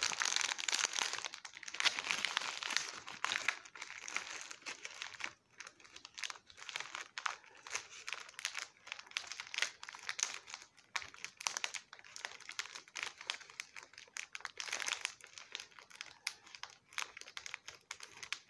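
Clear plastic wrapping crinkling as it is handled, in a dense run of crackles at first and then in shorter bursts.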